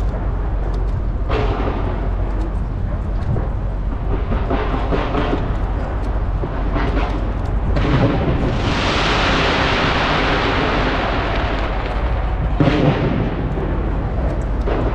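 Fireworks bursting overhead, with loud bangs about a second in, near eight seconds and again near thirteen seconds. From about eight to twelve seconds there is a long dense crackling hiss, all over a steady low rumble.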